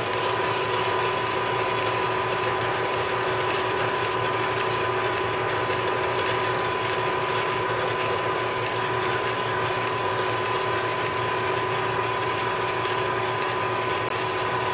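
Manual lathe under power while an AMEX indexable-insert spade drill bores deep into solid stock, flooded with coolant: a steady whine over a constant hiss of cutting and spraying coolant, even throughout.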